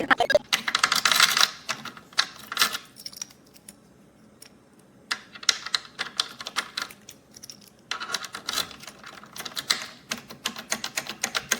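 Rapid runs of sharp, small clicks and clatters, like typing, coming in three bursts with quieter pauses between.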